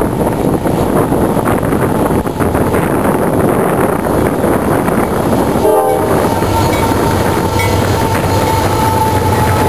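A CSX intermodal freight train led by diesel locomotives approaches and passes close by, its engines rumbling under heavy wind noise on the microphone. About six seconds in, the locomotive horn sounds and holds a steady chord as the lead units go by.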